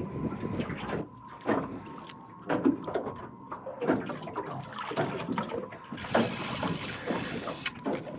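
Small waves slapping irregularly against the aluminium hull of a drifting small boat. Near the end a spinning reel is wound in.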